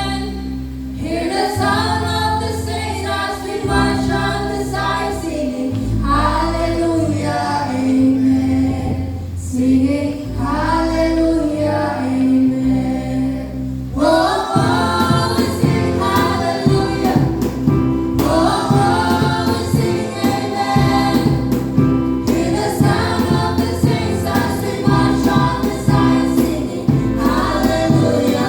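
A choir singing a gospel worship song over a keyboard and bass backing. About halfway through, the band comes in fuller with a steady beat.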